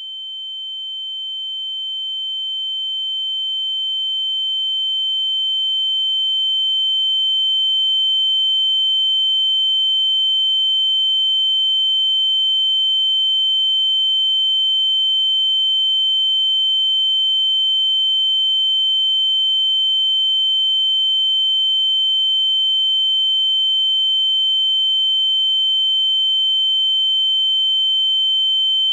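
Ear-ringing (tinnitus) sound effect: a steady high-pitched tone, with fainter tones above and below it. It swells in loudness over the first several seconds, then holds level.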